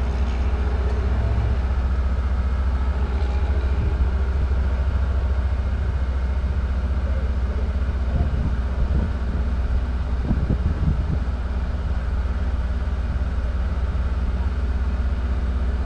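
A parked vehicle's engine idling, a steady low hum heard from inside the cab, with faint voices in the background about halfway through.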